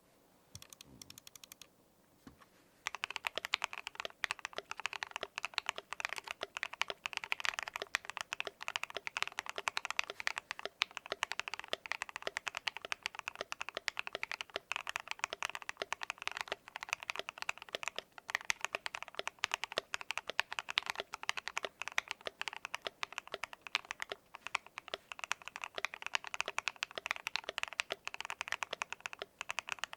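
Continuous fast typing on a KBD67 MKII mechanical keyboard with a brass plate, foam-dampened case, lubed and filmed JWK Moss linear switches and NicePBT keycaps, starting about three seconds in. The keystrokes are clacky with a creamy edge.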